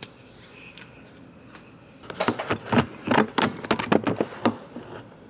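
A quick, irregular run of clicks and clacks of small hard objects being handled, starting about two seconds in and lasting a couple of seconds, after a quiet stretch.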